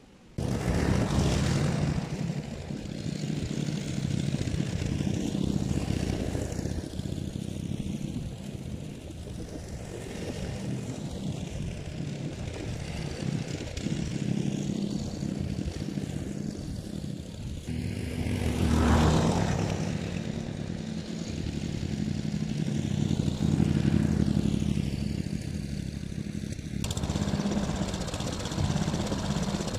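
Briggs & Stratton four-stroke lawn mower engine running steadily while cutting grass, getting louder and fading as the mower passes close by, loudest a little after halfway.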